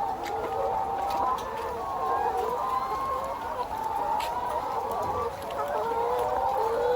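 A flock of chickens calling and clucking at once: many overlapping short calls making a steady chorus. A few faint sharp clicks come through it.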